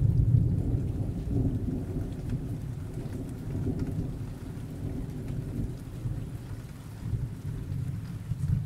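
Rain falling with a low rumble of thunder, the rumble slowly easing off.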